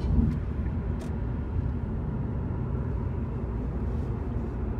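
Steady low rumble of road and engine noise heard inside a moving car's cabin, with a small click about a second in.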